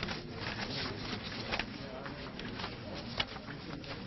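Faint, indistinct background chatter with scattered light clicks.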